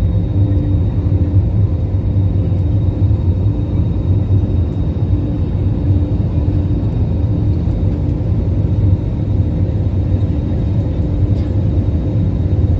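Steady jet-engine drone heard inside an airliner's cabin during the climb after takeoff: an even low rumble with a faint steady hum over it.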